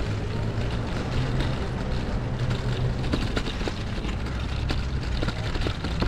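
A delivery van's engine running just ahead, a steady low hum, over street noise on a brick road. A few short clicks and knocks come in the second half.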